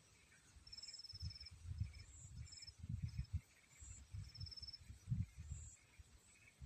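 Low, irregular rumbling bumps on the microphone, with a faint high, rapid trill from a small animal heard twice, about a second in and again past the middle, over faint outdoor ambience.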